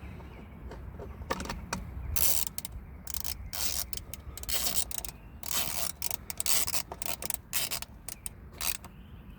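Hand tool driving small screws back into a steering column assembly: irregular clicking and rattling of metal parts.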